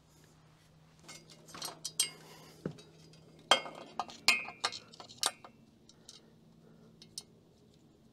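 A run of sharp metallic clinks and taps, a couple of them ringing briefly, from hands handling parts on a forklift mast's steel frame and light housing.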